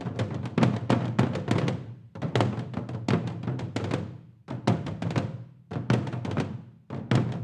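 Korean traditional percussion ensemble drumming fast, tightly rhythmic phrases of many strokes, broken by several short pauses.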